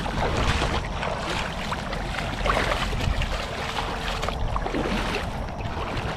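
Steady rush of moving water with scattered small splashes and knocks.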